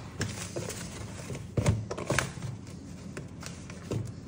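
Hands pressing pork cutlets into dry breadcrumbs in a plastic tub: soft rustling of crumbs with a few light knocks, the strongest about one and a half seconds in.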